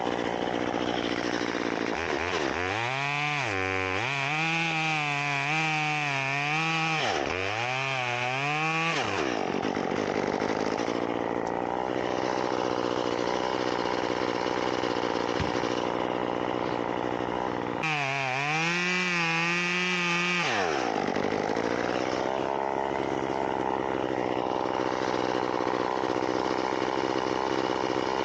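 Chainsaw cutting dead loblolly pine. It is revved hard twice, for about seven seconds and then about three, with the pitch wavering and dipping under load, and it runs at a lower, steady speed between and after.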